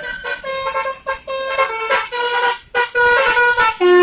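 Bus basuri ('telolet') multi-tone musical horn playing a tune of short stepped notes, with a brief break a little before three seconds in.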